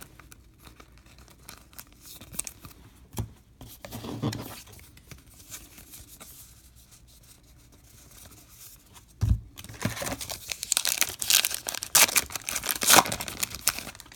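Trading cards being shuffled and handled with soft rustles. A low thump comes a little after nine seconds in, then a card pack wrapper crinkles and tears open loudly for a few seconds.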